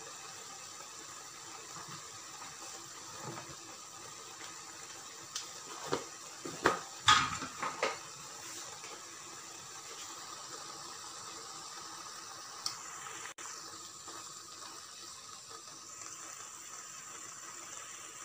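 Minced meat (qeema) with onions and tomatoes cooking in a wok with a steady low hiss as its water cooks off. A few sharp knocks and clatters come about six to eight seconds in, with one more click later.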